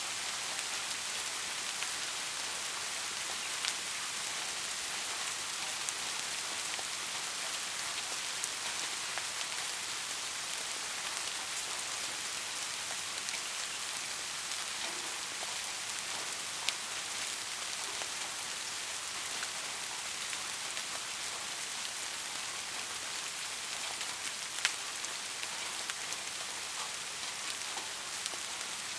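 Soft, steady rain: an even hiss of falling rain, with a few single drops ticking out sharply now and then.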